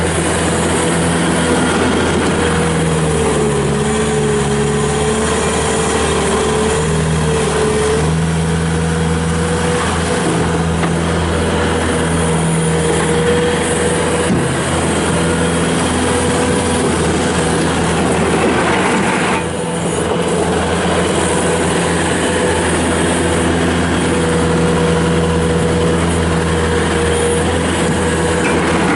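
2007 Bobcat S330 skid steer loader's diesel engine running steadily, with a whine on top that wavers slightly in pitch and one brief dip about two-thirds of the way through.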